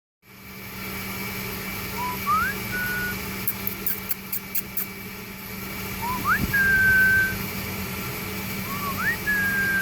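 A person whistling three times to call a dog, each whistle a short low note that slides up into a higher held note.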